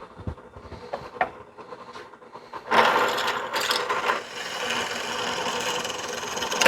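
Drill press bit boring into a knife handle scale: after a few light clicks, a loud, steady cutting whir starts almost three seconds in.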